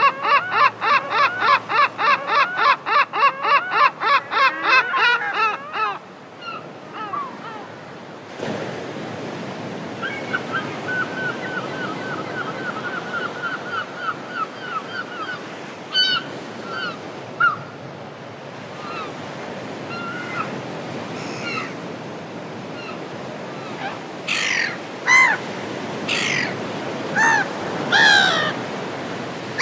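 Gulls calling over the sea: a fast run of loud, repeated cries, about four a second, for the first six seconds, then a quicker, fainter chatter and scattered single cries, growing louder again near the end, over a steady wash of water.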